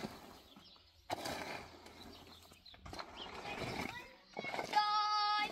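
A person's voice calling out, with one long, level held note near the end, after a few seconds of low, uneven background noise.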